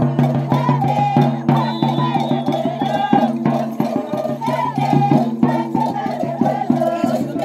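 Andean folk band music: a bass drum beats a steady rhythm under a sustained, droning melody.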